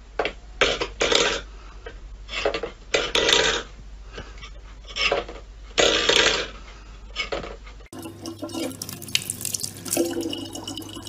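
Stainless steel pet bowl pushed by a cat's paw on a wooden floor, scraping and clattering in repeated short bursts. For the last few seconds, a thin stream of tap water runs into a plastic water bottle.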